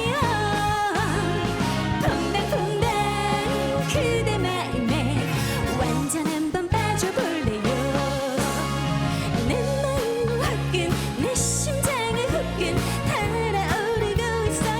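Trot song played by a band with a steady beat and a wavering lead melody line.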